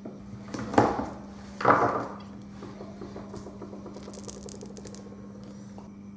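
Small plastic RC shock absorber parts being handled and fitted together on a table: two loud scrapes about a second apart, then softer rattling and a few light clicks, over a steady low hum.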